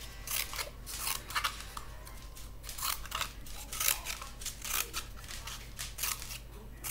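Scissors snipping notches into a cardboard tube: a string of short, sharp, irregular snips, about two or three a second.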